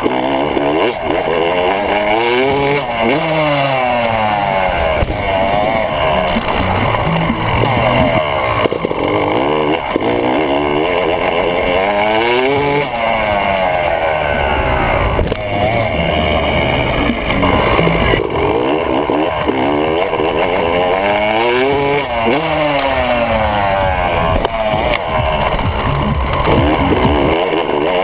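Motocross bike engine picked up close by a camera mounted on the bike, revving up and easing off in repeated rising and falling sweeps, roughly every nine seconds, as the rider accelerates up to freestyle jumps and lets off the throttle in the air.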